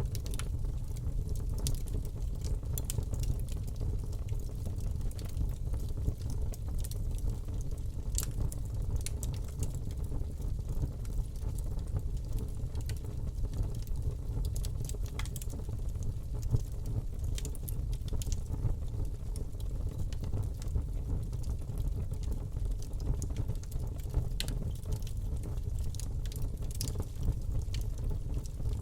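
Fire burning in a fireplace: a steady low rumble of flames with irregular sharp crackles and pops scattered throughout.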